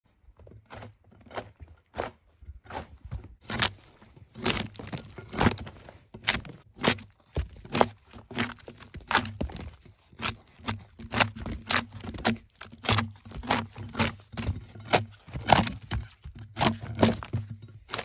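Bark being pried and torn off a large alder log with a long steel bar: a long irregular run of sharp cracks and thuds, about one or two a second, as pieces of bark split away from the wood.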